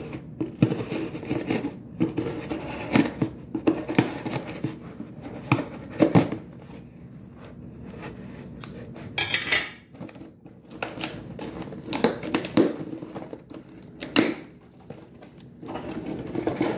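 Scissors cutting the tape on a cardboard shipping box, with repeated knocks, clicks and scraping of the scissors and cardboard as the box is handled and opened. There is a short rasping sound about nine seconds in.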